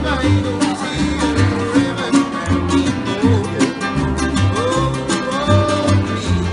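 Live acoustic string band: two acoustic guitars strumming chords over a plucked upright double bass, with a man singing the melody.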